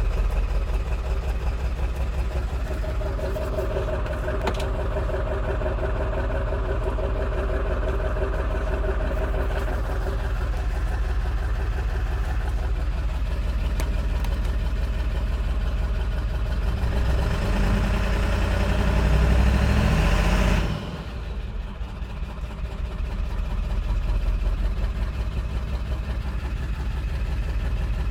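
Vehicle engine idling roughly, with a steady rapid pulsing. Past the middle it runs louder for a few seconds, then drops off suddenly and builds back up.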